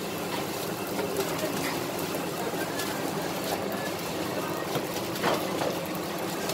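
Steady machine hum of commercial kitchen equipment, with faint background chatter and a few light clicks.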